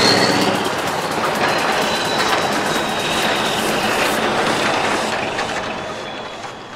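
Scania R500's straight-piped V8 diesel running as the tractor-trailer drives past and pulls away, loudest at first and then fading steadily as the truck moves off.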